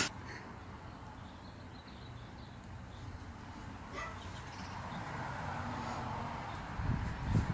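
Dogs playing, a German Shepherd and a Siberian Husky, making low dog noises. There is a sharp click right at the start and a louder burst of low sounds near the end.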